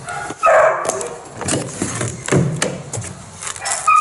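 Clicks, knocks and rattles of an aluminium tool case and a digital tyre air gauge with its hose being handled and unpacked, with a louder scrape about half a second in.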